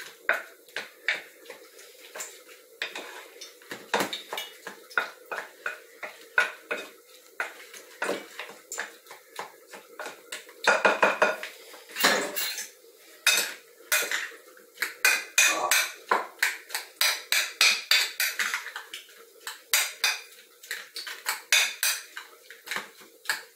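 Cutlery clinking and scraping against a bowl in quick, irregular strokes as cooked jiló (scarlet eggplant) is stirred and mashed with seasoning. The strokes get busier and louder about halfway through.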